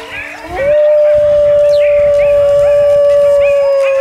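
Wolf howling: one long, steady howl that starts about half a second in and sags slightly in pitch near the end.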